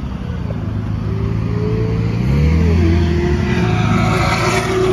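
R32 Nissan Skyline's engine pulling away at low speed, rising in pitch about two seconds in and getting louder as the car passes close by.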